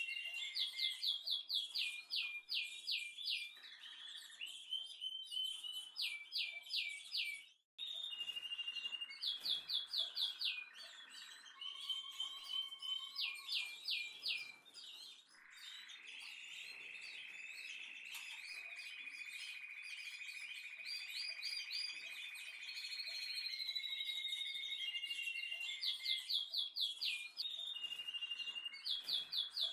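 Songbird singing: quick runs of high chirps that sweep downward, repeated in bursts, with steady held notes between them and one long even trill in the middle. The sound cuts out completely for a moment about eight seconds in.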